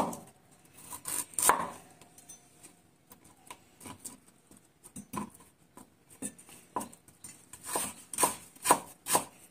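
Kitchen knife chopping on a cutting board: scattered single strikes at first, then a steady run of about two chops a second near the end.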